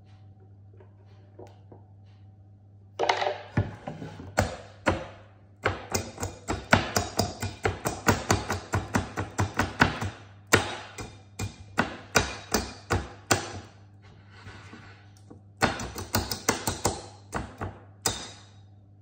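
A metal spoon clicking and scraping rapidly against a metal mesh sieve over a glass jug as a thick mixture is worked through the sieve. The clicks come in quick runs, several a second, starting about three seconds in, with two short pauses.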